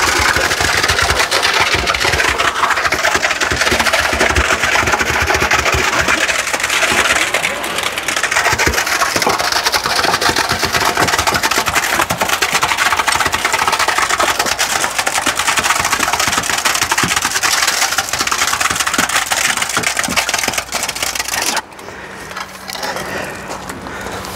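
Concrete pump running, pushing concrete through its flexible hose into the trench: a steady, loud mechanical noise full of fine rapid rattling. It cuts off suddenly near the end, leaving a quieter steady low hum.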